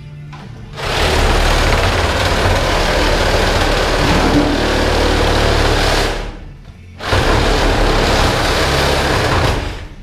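A power cutting tool cutting through metal conduit pipe, loud, in two long runs with a short pause about six seconds in.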